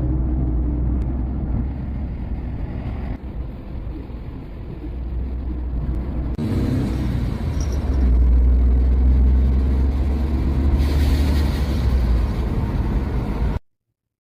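Car driving: a steady low rumble of engine and road noise, changing abruptly several times and cutting off suddenly near the end.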